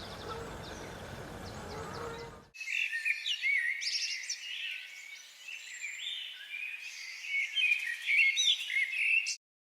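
Birds chirping and singing. Faint chirps over outdoor background noise at first, then, from about two and a half seconds in, a louder dense twittering of many quick, overlapping calls that cuts off suddenly near the end.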